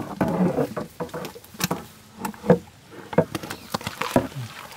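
Soft wet squelching and plopping of a big mass of whipped ice cream sliding off a metal tray into a pot of dragon fruit pulp, with irregular light clicks and knocks.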